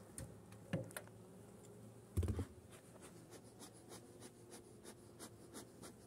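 Faint scratching and clicking of beekeeping equipment being handled, a hive tool and a metal bee smoker, with one louder thump about two seconds in.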